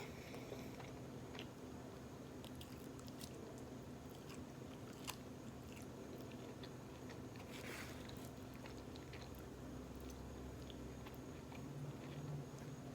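Faint chewing and mouth sounds of a person eating, with scattered small clicks and a soft brief hiss partway through.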